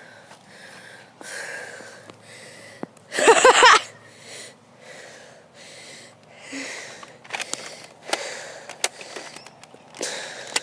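Heavy breathing close to the microphone, a breath in or out about every second. About three seconds in comes a short, loud voiced cry. Several sharp clicks follow in the second half.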